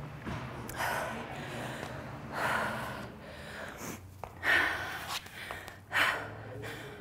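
A woman breathing hard during exercise: short, forceful exhales and gasps every second or two, with two louder ones in the second half.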